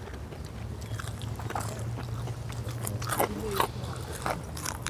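Crispy fried chicken wings being bitten and chewed, with several sharp crunches of the fried coating.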